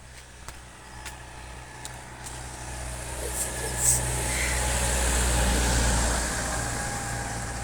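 A motor vehicle passes by, its engine growing louder to a peak about five to six seconds in and then fading away, with a brief sharp click near the middle.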